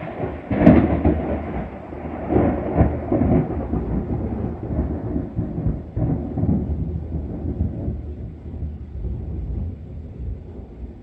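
Thunder from cloud-to-cloud lightning: a sudden clap about half a second in, a couple more cracks between two and three seconds, then a long rolling rumble that slowly fades.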